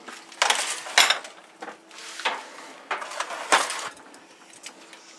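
Foil-lined metal baking sheet being handled, clanking and scraping about six times in the first four seconds.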